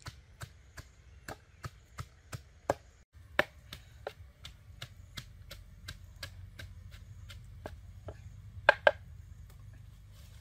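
Wooden pestle pounding green chilies and shallots in a wooden mortar: a steady rhythm of dull knocks, about three a second, ending with two louder knocks near the end.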